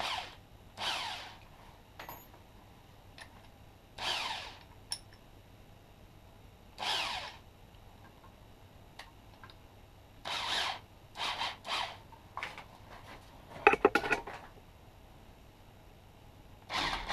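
Skil corded electric drill pulsed on and off in a string of short whirrs, each spinning up and winding down, while its bit is being changed in the chuck. Near the end it starts to run steadily.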